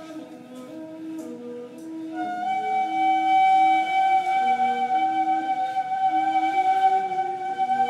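Two neys (end-blown reed flutes) playing an improvised modal duet: a line of short lower notes steps up and down while, about two seconds in, a long high note enters and is held, growing louder.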